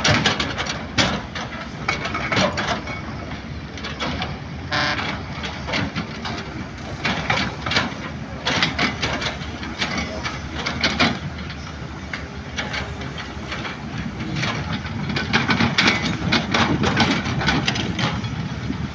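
Several hydraulic crawler excavators digging earth: diesel engines running with frequent metallic clanks and rattles from buckets and tracks, louder again near the end.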